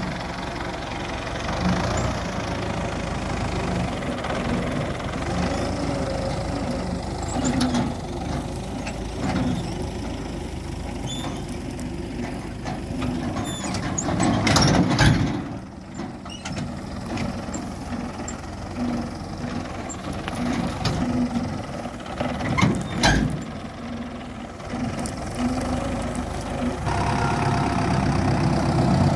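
Tractor diesel engine running steadily under load, powering a tractor-drawn wheat straw chopper (bhusa machine) as it cuts stubble and blows the straw into a trolley. Brief louder bursts of noise come about halfway through and again about two-thirds of the way through.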